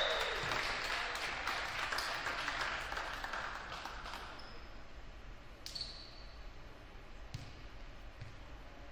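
Crowd and player noise in a reverberant gym after a rally ends, fading away over the first few seconds. Then two short high squeaks of sneakers on the hardwood floor, and a single thump later on.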